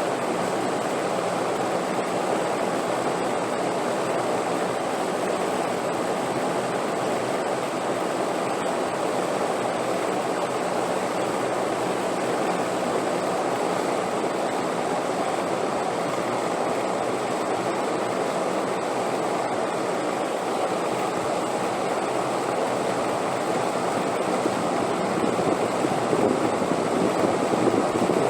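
Steady rushing wind noise, used as a sleep soundscape, swelling slightly near the end.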